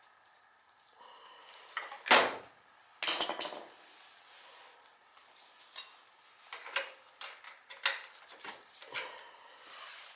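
Metal tools and parts clinking and clanking: two loud clanks about two and three seconds in, then a run of lighter clicks and rattles.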